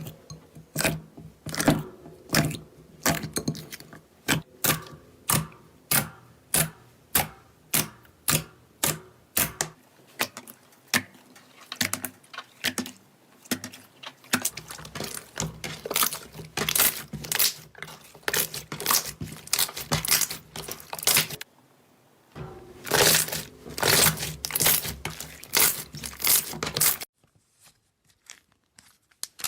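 Slime being pressed and squeezed by hand, giving sharp crackling pops about twice a second, with a brief pause about three quarters through and a stop shortly before the end.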